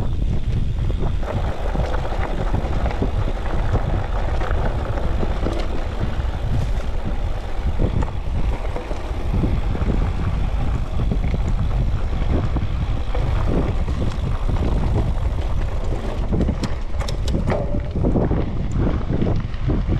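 Wind buffeting the microphone of a camera riding on an electric mountain bike, a steady low rumble, with the bike's frame and parts rattling and knocking over rough ground, more densely near the end.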